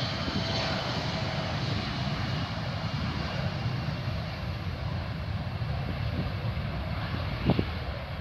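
Bombardier CRJ-900's two rear-mounted General Electric CF34 turbofans at takeoff power as the jet accelerates down the runway: a steady jet rumble, with wind buffeting the microphone. A brief knock sounds near the end.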